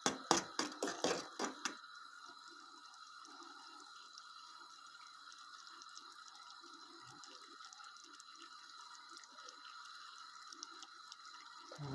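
A fork clinks against a small metal ladle about three times a second as the sugar is stirred, stopping about two seconds in. Then sugar syrup bubbles quietly as it comes to the boil on the gas stove.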